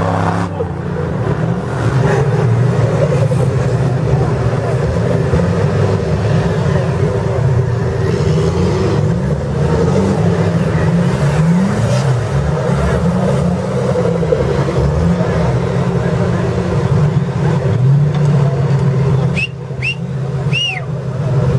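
Engine of an off-road trial 4x4 running under load and being revved again and again, its pitch rising and falling as it works. Near the end come a few short, high chirps.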